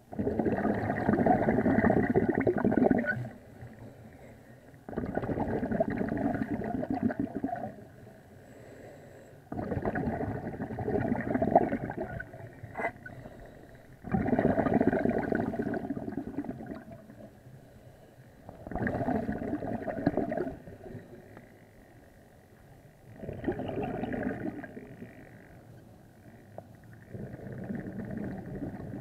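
Scuba diver's exhaled air bubbling out of the regulator, heard underwater: a loud bubbling rush of two to three seconds with each breath out, repeating about every four to five seconds, with quieter gaps between breaths.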